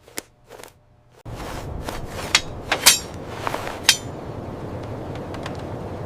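Several sharp metallic clinks and knocks of tools and metal parts being handled, the loudest a close pair near the middle, over a steady noise that comes in about a second in.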